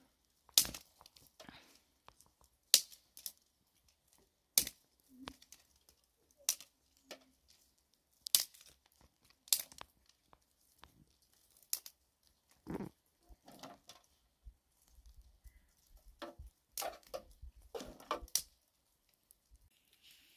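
Dry twigs snapped by hand and kindling laid into a metal grill: a series of sharp cracks at irregular intervals, with the rustle and crackle of dry leaves and twigs in between.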